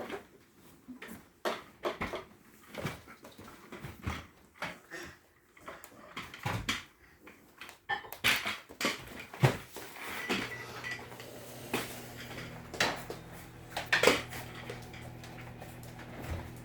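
Scattered knocks and clinks of hard objects being handled and set down, irregular and sharp. A steady low hum from a motor or appliance comes in about ten seconds in.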